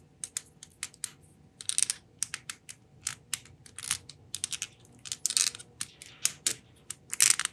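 A small precision screwdriver working on the small metal parts of a posable puppet arm: a run of irregular, sharp light clicks and scrapes of metal on metal.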